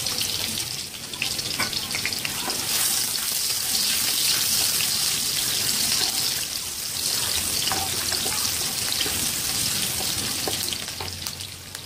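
Chopped shallots and garlic sizzling in hot oil in a nonstick pan, a steady frying hiss with small crackles as a wooden spatula stirs them.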